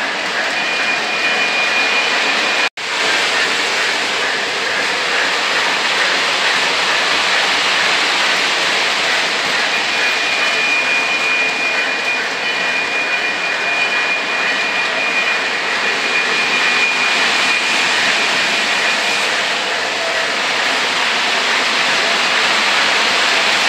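O gauge model trains running on three-rail track: a steady rolling whir of wheels and motors, with a thin high whine that comes and goes. The sound cuts out for an instant about three seconds in.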